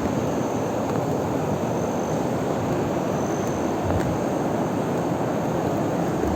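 Steady rush of water from a river's small waterfall, an even unbroken roar.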